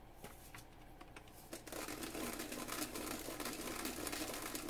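Sesame seeds rattling in a plastic shaker as they are shaken out over a dish: a fast, dense rattle that starts a little under two seconds in and keeps going.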